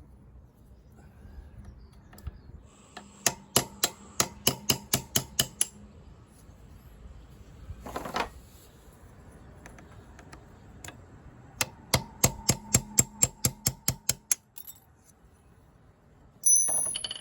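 A hammer tapping a pin punch to drive the rear brake pad retaining pin out of a BMW R1200GS brake caliper: two runs of about a dozen quick metallic taps, about four a second, with a short ring after each. A louder metallic clatter near the end.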